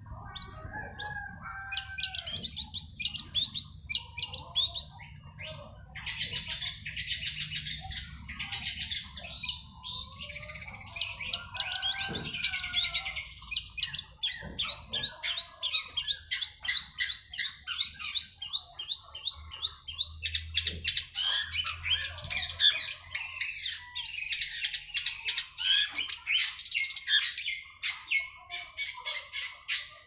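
Long-tailed shrike (cendet) song: long, fast runs of sharp, high chattering notes, many per second, broken by a few short pauses.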